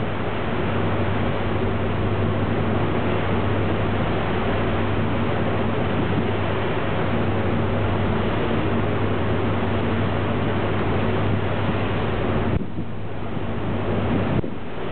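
Steady low drone of a ferry's engines under a broad rush of wind over the microphone and sea; the rush eases briefly twice near the end.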